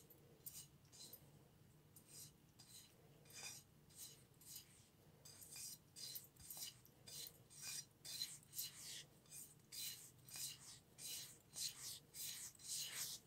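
Fingers mixing dry rice flour, semolina and chilli powder on a flat dish: faint, soft rubbing and scraping strokes, sparse at first and coming more often, about one or two a second, from about halfway through.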